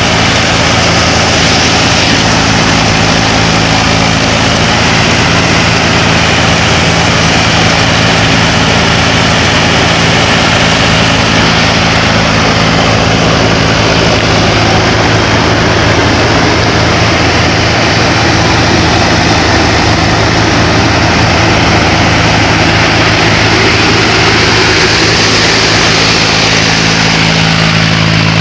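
Mahindra 265 DI Power Plus tractor's three-cylinder diesel engine running steadily under load as it drives a grain thresher. The engine is mixed with the thresher's dense, even noise.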